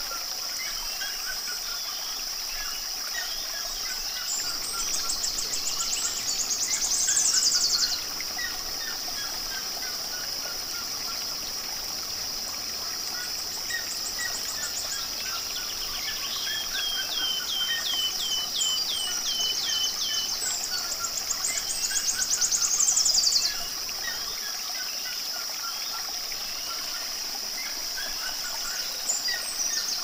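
Several birds singing at once, with chirps and whistled phrases throughout over a steady high hiss. Twice, a few seconds in and again past the middle, a song swells louder with fast sweeping trills and then breaks off suddenly. Between the two, a bird repeats one short note about nine times.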